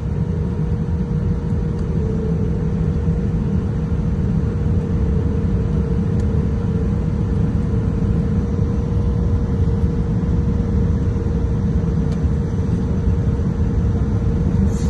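Steady cabin noise of an airliner taxiing, heard from inside the cabin: a low rumble with a constant mid-pitched whine from the engines.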